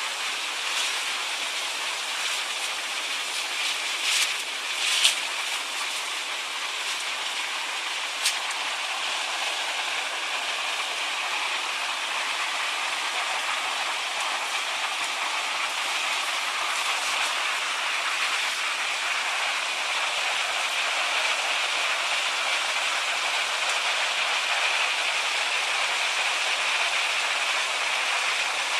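Mountain stream rushing over rocks, a steady rush of water that grows slightly louder toward the end. A few short sharp knocks about four, five and eight seconds in.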